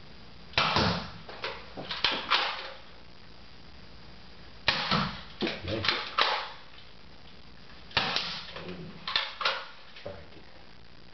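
A Nerf dart pistol cocked and fired three times: each round is a quick run of plastic clacks and snaps from the slide being pulled back and the trigger released, with a second or two of quiet between rounds.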